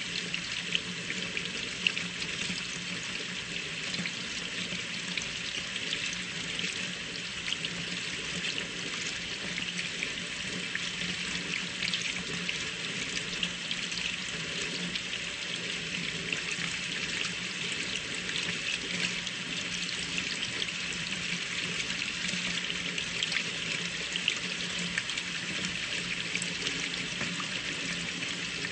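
Water running steadily from an open tap into a sink, a continuous splashing hiss as the hot water is drawn through from the batch water heater.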